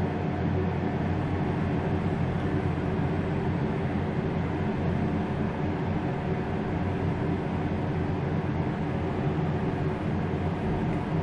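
ThyssenKrupp traction elevator car travelling toward the ground floor: a steady hum and rumble of the ride inside the cab, with several steady low tones.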